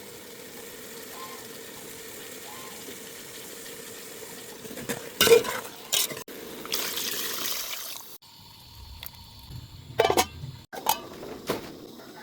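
Food sizzling steadily in a pot, then a metal utensil clanks against the pot a few times and a louder hiss follows for about a second and a half. More clinks of the utensil come near the end.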